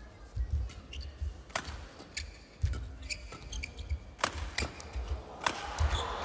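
Badminton rally: rackets strike the shuttlecock with sharp cracks roughly every one to one and a half seconds. Between the strikes are short squeaks and low thuds of footwork on the court mat.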